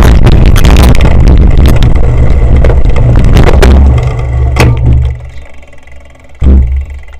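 Wind buffeting and rattling on a rider-mounted action camera as a cyclocross bike rides fast over rough, rutted grass, very loud and heavy in the low end. The noise drops off about four seconds in as the rider slows and dismounts, leaving two thumps, the louder one near the end, as the bike is carried up the steps.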